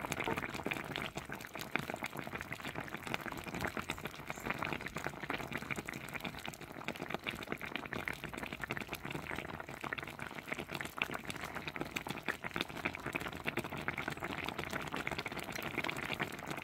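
Fish and vegetables simmering in a pan of sauce: a steady, dense bubbling crackle.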